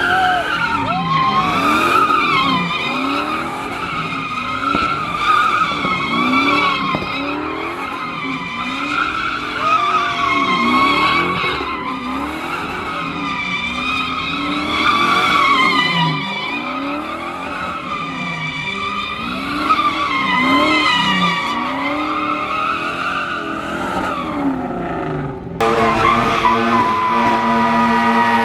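A car doing donuts: its tires squeal continuously with a wavering pitch while the engine revs rise and fall about every two seconds. Near the end the sound changes abruptly to a steady, held engine note.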